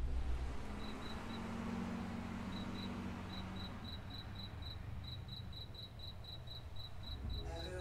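Crickets chirping at night, short high chirps about four a second with a brief lull near the start, over a faint low background rumble.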